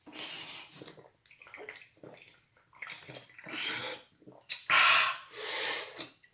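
A man gulping a drink from a tall can, a run of swallows and sloshing sips, followed by two loud breathy exhales near the end.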